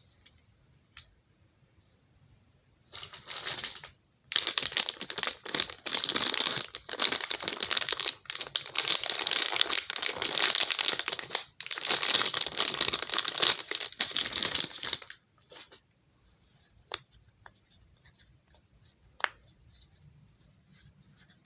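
Crinkly plastic packaging being torn open and crumpled, a dense crackling that lasts about eleven seconds and stops abruptly, followed by a few faint taps.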